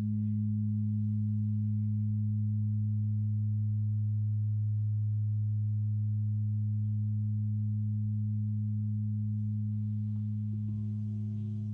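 A deep, steady pure tone with a second tone an octave above it, held without a break and easing slightly in loudness: a meditative sound-healing drone. About a second before the end, a new set of higher ringing tones comes in on top.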